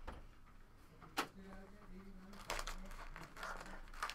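Foil trading-card pack wrapper crinkling and cards being handled, with a single sharp click about a second in.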